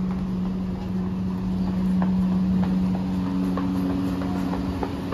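Footsteps on paving stones, about two a second, over a steady low hum, with a second, higher hum tone joining about three seconds in.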